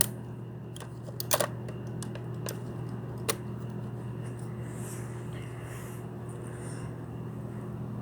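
A few light clicks and taps of hand tools being handled and set down, strongest about a second and a half in and again about three seconds in, over a steady low hum.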